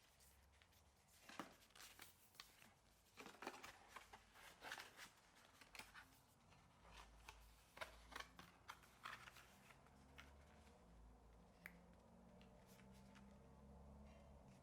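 Hands handling laptop packaging: a quick run of rustles, crinkles and light clicks for about the first ten seconds, then it goes quieter.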